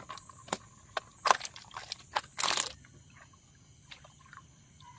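Water splashing and knocking around a wooden canoe as a fishing net is worked, in a few short sharp splashes with a longer splash about two and a half seconds in. A faint steady high hiss runs underneath.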